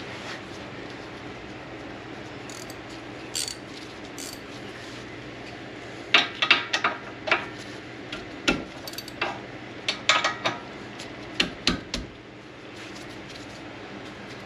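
Metal tools and parts clinking and clattering while a rear brake caliper bracket is being fitted and bolted back on, in irregular clusters of sharp clicks from about six seconds in to about twelve. A steady low hum runs underneath.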